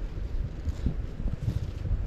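Wind buffeting the action camera's microphone, an uneven low rumble that swells and dips in gusts.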